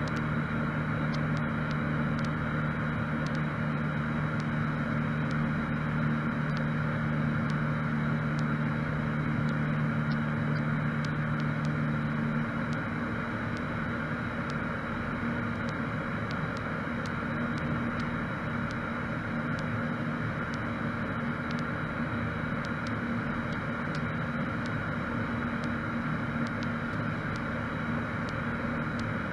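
Cessna 152's four-cylinder Lycoming O-235 engine and propeller running at a steady cruise setting, heard as a constant drone inside the cabin. A low steady hum within the drone drops out about twelve seconds in, and the drone turns slightly quieter.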